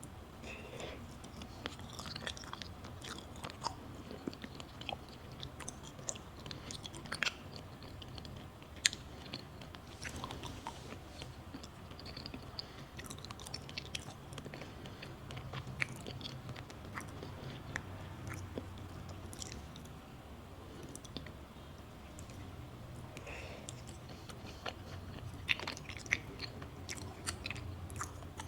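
Close-miked chewing and biting of a matcha pudding crepe: soft wet mouth sounds with many small sharp clicks, scattered irregularly.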